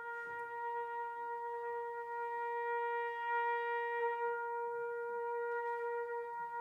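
A brass quintet holding one long, steady note, with faint other tones coming and going beneath it.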